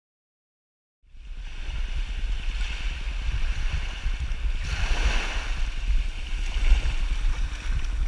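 Shallow sea water washing over a sandbar, with wind buffeting the microphone, fading in about a second in after silence; the water swells a little past the middle.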